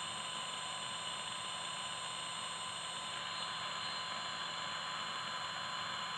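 Car starter motor spinning freely off a speed controller, drawing about 30 amps: a steady whir with a steady high whine over it.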